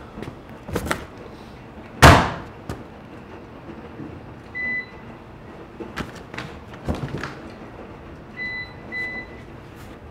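A laundrette washing machine's front door banging shut about two seconds in, with smaller knocks of handling around it. The machine's control panel then beeps: one beep around the middle and two short beeps near the end.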